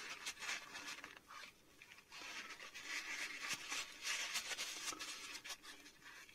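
Paper tissue rubbing around inside a chrome airbrush paint cup, wiping out leftover paint: a faint, irregular dry rustling and scraping.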